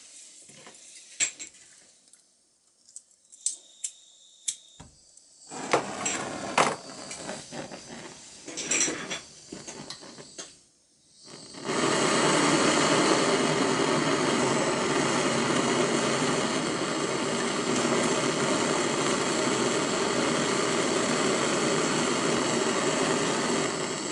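A few light clicks and knocks of metal being handled. Then, about halfway through, a gas torch's flame starts hissing steadily and loudly as it heats a brass tube in a vise for soldering.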